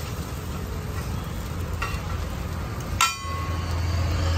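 Steel spatula scraping and pushing an egg omelette across a hot flat iron griddle, with frying sizzle, over a low steady hum. About three seconds in, a single sharp ringing metal clang as the spatula strikes the griddle.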